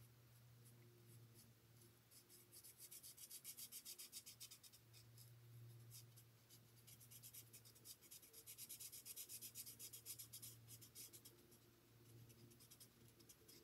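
Marker tip scratching across cardstock in quick, short colouring strokes, faint, in spells of several strokes a second with short pauses between.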